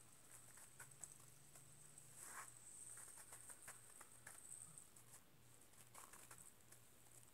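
Near silence, with faint scattered ticks and rustles from a plastic fidget spinner being spun and handled on a fingertip.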